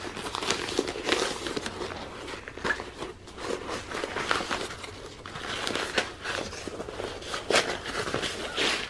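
Fabric cover being pulled and tucked over a heated pet mat by hand: irregular rustling and crinkling of cloth, with small scattered clicks from handling.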